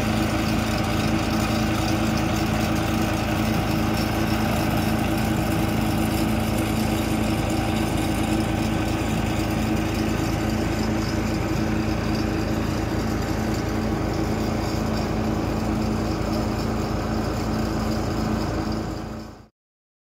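Heavy-haulage truck's diesel engine running at a steady, even speed, moving slowly while hauling a long multi-axle trailer; the sound cuts off suddenly near the end.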